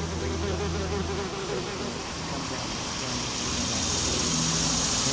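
Yellowjacket buzzing in flight close by, a hum that comes and goes, over a steady hiss that gets louder about three and a half seconds in.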